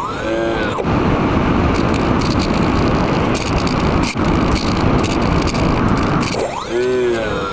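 Twin electric motors of a Twinstar II RC plane whining and dipping in pitch with throttle, then a long stretch of rushing air noise on the onboard microphone with the motors throttled back as the plane glides low. Near the end the motor whine rises and falls again.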